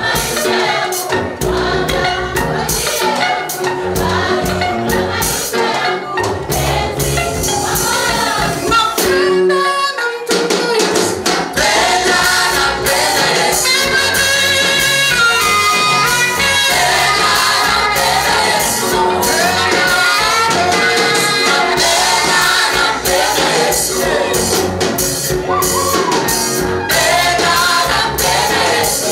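Gospel choir singing in Swahili over a band with a steady beat and tambourine, with a short break in the bass about ten seconds in.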